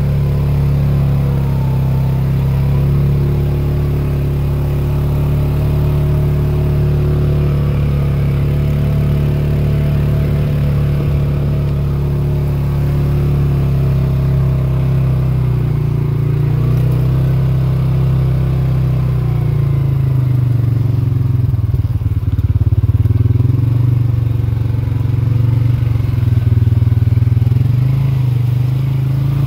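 ATV engine running steadily as the quad rides along a dirt trail. The engine note turns uneven about two-thirds of the way through.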